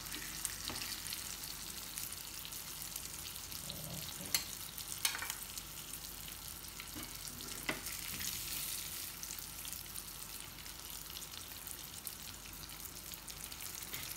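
Rohu fish steaks sizzling steadily in shallow oil in a pan, with a few clinks and scrapes of a steel spatula against the pan as the pieces are moved.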